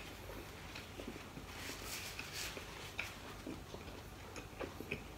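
Faint rustling and a few soft clicks of hands handling a lettuce wrap of food, with a brief louder rustle about two seconds in.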